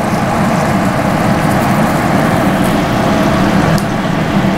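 Thick tomato meat sauce bubbling in a large pot on the stove, a steady rumbling noise as it simmers down and thickens.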